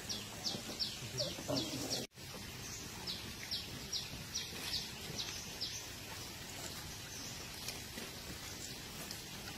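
A bird calling a run of short, high, falling notes, about three a second, then a second run after a brief break about two seconds in.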